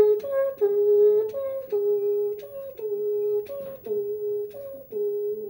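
A man imitating an ambulance siren with his voice: a hummed two-note wail repeating about once a second, each time a short higher note dropping to a longer lower one.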